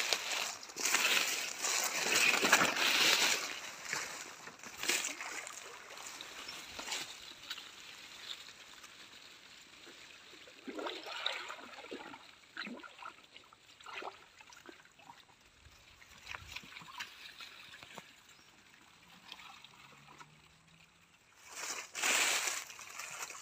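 Water splashing and sloshing as a person moves through the water and gropes with bare hands for fish. The splashing is loud for the first few seconds, gives way to softer, scattered splashes, and turns loud again near the end.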